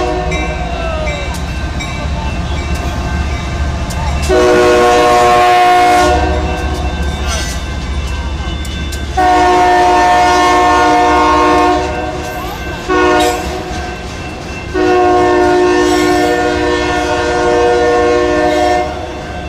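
Locomotive air horn sounding a chord of several tones in four blasts, long, long, short, long (the grade-crossing warning signal), over the low rumble of the passing train.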